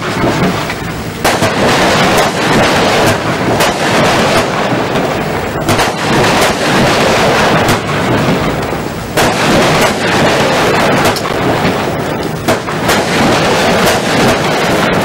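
Lesli 'Crouching Tiger' 36-shot firework cake firing, with shots launching and bursting in quick succession so that the bangs overlap into a dense, continuous barrage.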